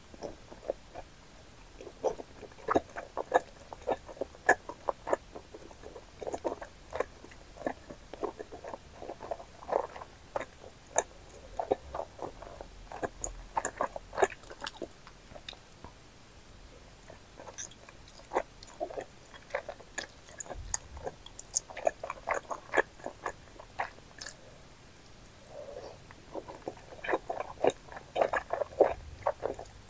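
Close-miked biting and chewing of wide, chewy Chinese starch noodles (bunmoja): many short mouth clicks coming in bursts, sparser in the middle and busier again near the end.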